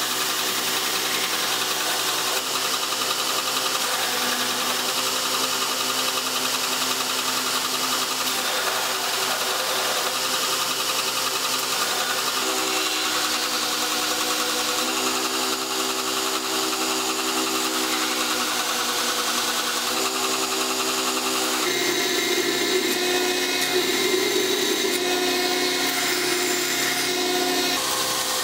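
Belt grinder running steadily while a steel knife blank forged from ball bearings is ground against the belt, rough-grinding the blade's profile. The motor and belt hum shifts in pitch a few times, most clearly about two-thirds of the way in.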